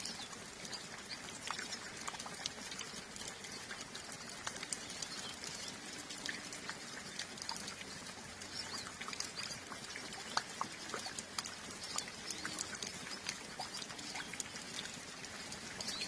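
Calm rain falling, with drips pattering and clicking close by, and scattered short high chirps from a flock of hooded siskins.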